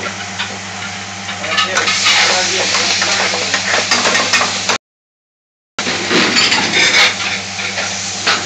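Metal ladle clinking and scraping in a frying pan as a creamy curry is stirred, over busy restaurant kitchen noise: clattering pans, background voices and a steady hum. The sound cuts out completely for about a second midway.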